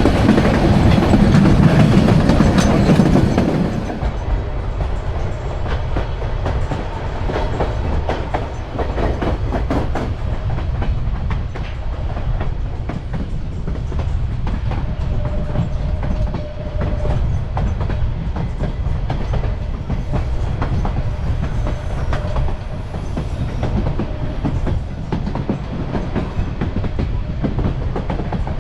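Railroad passenger cars running along the track: a steady low rumble with wheels clicking over the rail joints. A louder rushing noise fills the first few seconds, then the sound settles to an even run.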